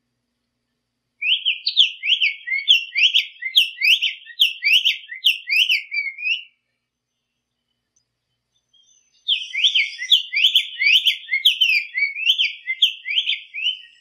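Black-faced tanager (sanhaço-de-coleira) singing: two bouts of quick, sharp whistled notes, each note sliding steeply in pitch, at about three notes a second. The bouts are separated by a pause of about three seconds.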